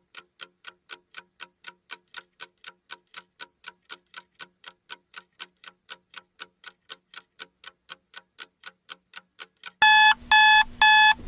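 Countdown-timer sound effect: clock-like ticking at about four ticks a second, then three loud electronic beeps near the end as the timer reaches zero, signalling that time is up.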